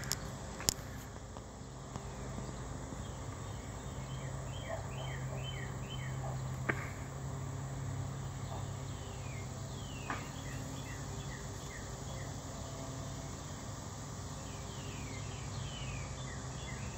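Outdoor insect chorus with runs of short, quick falling chirps coming in several bursts, over a steady low hum, with a few faint clicks.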